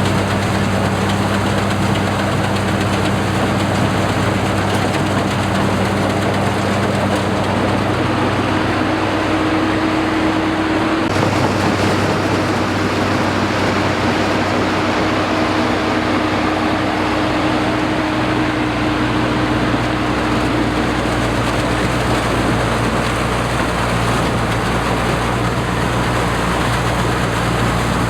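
Engine of a rice harvesting machine running steadily, its note shifting about a third of the way in.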